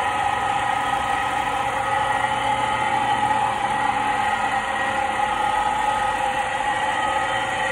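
Quadro 197 Comil cone mill running empty, its electric motor and milling impeller giving a steady whine over a constant hum.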